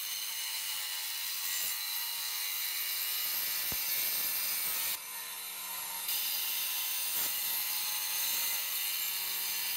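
Boda brushless twin-blade wall chaser running steadily with its blades in a brick wall, cutting a groove: a continuous high-pitched grinding whine that briefly thins about five seconds in.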